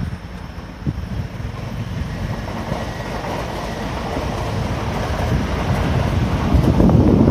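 JR East E657 series limited express electric train running along the track below, its rumble of wheels and motors growing steadily louder as it comes closer.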